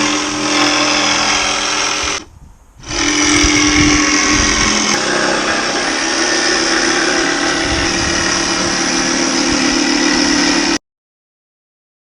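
Loud handheld electric power tool running steadily. It stops for a moment about two seconds in, starts again, and cuts off suddenly near the end.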